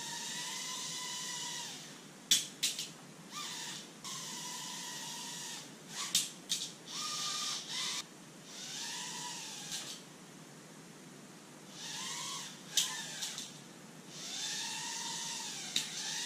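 Vuelo Crest nano drone's tiny propeller motors whining in spurts of a couple of seconds each, the pitch swelling and dipping as the throttle changes. Several sharp clicks and knocks fall between the spurts.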